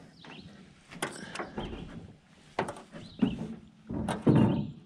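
A few scattered knocks and handling noises, then a louder splashing burst near the end as a smallmouth bass is lowered back into the water for release.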